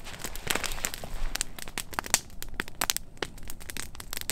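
Campfire crackling, with irregular sharp pops and snaps.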